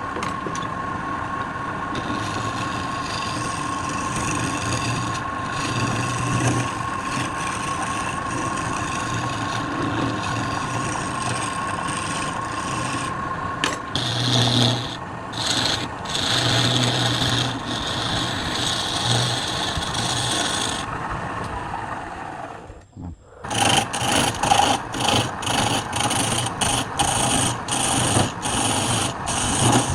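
Wood being rasped and rubbed on a woodturning lathe: a steady rough scraping over a thin motor whine, which dies away about two-thirds of the way through. After a short lull come rhythmic rasping strokes on the wood, about two a second.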